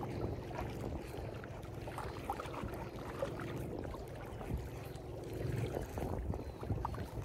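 Wind buffeting the microphone and small waves lapping on shore rocks, with faint scattered ticks and a faint steady hum underneath.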